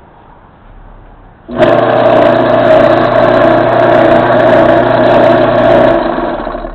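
Craftsman Dunlop 109 metal lathe's electric drive motor switched on about a second and a half in, running with a loud steady hum for about four seconds, then switched off and winding down. The spindle does not turn with it, which the owner takes for a problem with a key.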